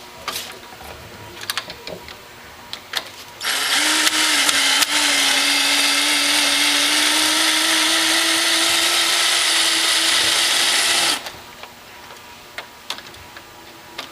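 Power drill with a long bit driving a screw into door knob hardware, its motor running steadily for about seven seconds before stopping abruptly, with a few light clicks of handling before and after.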